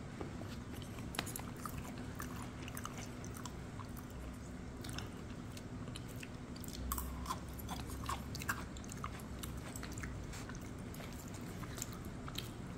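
A person chewing food with the mouth close to the microphone: irregular small wet clicks and smacks, over a faint steady hum.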